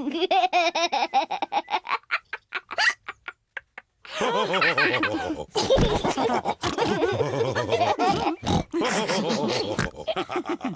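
Cartoon pig characters laughing and snorting together. The laughter thins out and stops for a moment about three and a half seconds in, then starts again.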